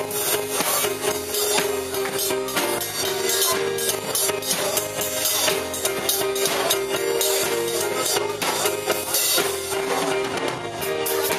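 Live church band music with drums, tambourine and guitar playing a steady rhythm.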